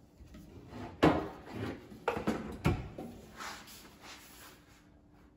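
Knocks and rattles of an IKEA kitchen drawer box and its metal slide rails as the drawer is handled and lined up onto the pulled-out runners. Several sharp knocks: the loudest about a second in, two more a little after two seconds, then quieter.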